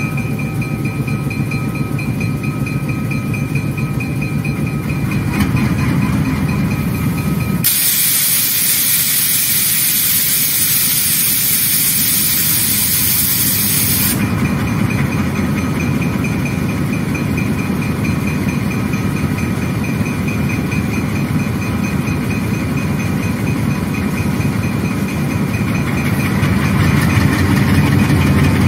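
Two GE U20C diesel-electric locomotives working hard to start a loaded freight train on wet rail, their engines running under load while the wheels struggle for grip. About eight seconds in, a loud hiss of escaping air lasts around six seconds, then the engines are heard again, growing louder near the end.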